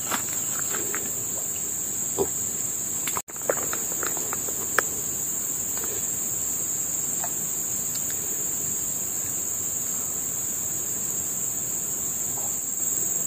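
Steady high-pitched chorus of insects, with a few small clicks and taps scattered through it. The sound cuts out for an instant about three seconds in.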